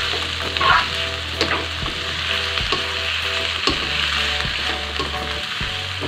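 Mustard greens, meatballs, tomato and chilies sizzling in hot oil in a wok while a spatula stirs and tosses them, with a sharp scrape or knock of the spatula against the pan every second or so.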